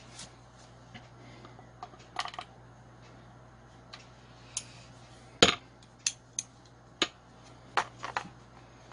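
Scattered sharp metal clicks and clinks of pliers handling a chainsaw's removed chain-brake cover and brake band, the loudest about five and a half seconds in, over a low steady hum.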